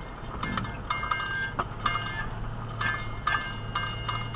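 Loose metal objects clinking and rattling inside a 4x4 on a rough trail: a run of sharp clinks, each with a brief ring, in two clusters. Under them is a steady low engine hum.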